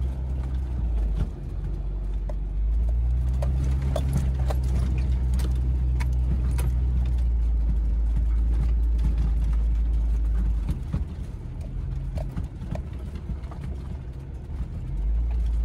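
1994 Geo Tracker's four-cylinder engine pulling through soft sand, easing off about ten seconds in and picking up again near the end, with scattered knocks and rattles.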